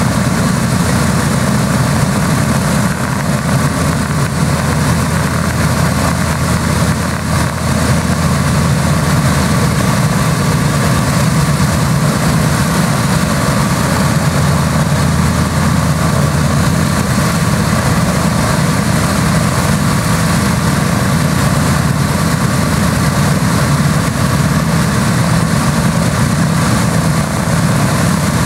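Boeing B-17 Flying Fortress's four Wright R-1820 Cyclone radial engines idling just after start-up, a loud, steady low rumble.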